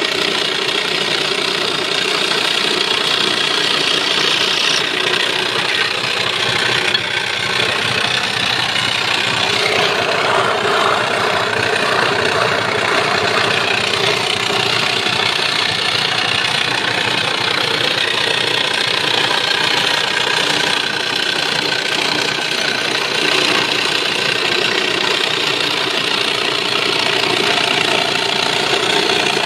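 Electric jigsaw running steadily as it cuts a curve through a wooden board, the blade chattering in the wood.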